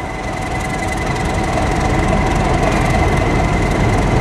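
Class 31 diesel locomotive drawing in slowly with its coaches: low engine rumble growing louder as it approaches, with a steady high squeal from the train's wheels.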